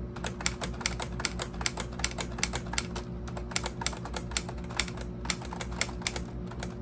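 Keys and type-bar hammers of a LEGO Ideas Typewriter (21327), a plastic brick model, clacking in quick, uneven typing at about five strokes a second.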